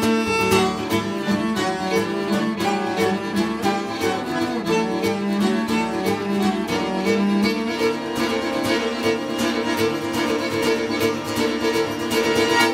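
Band music with a steady beat, playing as a soundtrack and cutting off abruptly at the end.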